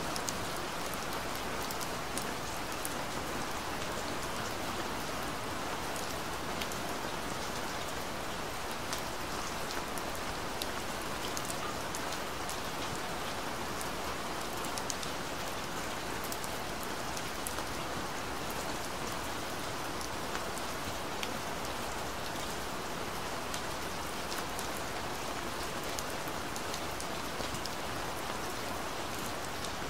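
Recorded steady rain: a constant hiss of rainfall with many individual drops ticking through it.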